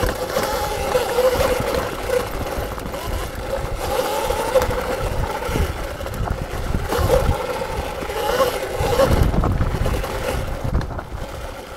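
Electric dirt bike riding, its motor whine wavering up and down with the throttle. Wind buffets the microphone, heaviest near the end.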